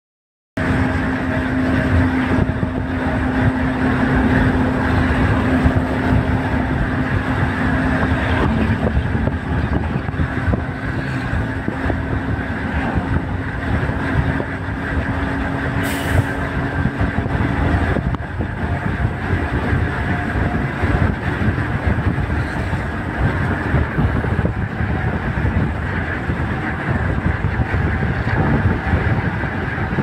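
Steady rumble and road noise of a moving vehicle, with a steady low hum that fades out about halfway through and one brief high click near the middle.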